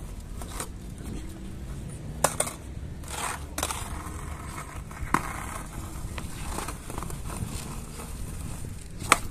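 BMX bikes on a concrete street spot: scattered sharp clacks and knocks with short scrapes, the loudest knocks a little over two seconds in, about three and a half, about five, and just before the end.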